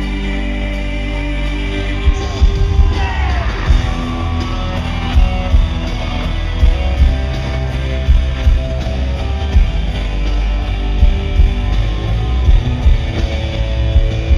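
Live country-rock band playing through arena speakers: electric guitars and vocals, with a strong beat coming in about two seconds in.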